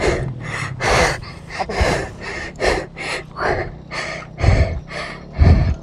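Fast, heavy panting, about two breaths a second, close to the microphone, from the rider straining to lift the fallen motorcycle out of deep sand, over a faint low steady hum.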